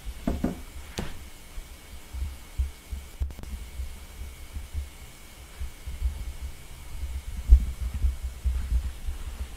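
Low, irregular muffled thumping and rumble, with one stronger thump about seven and a half seconds in, over a faint steady high tone.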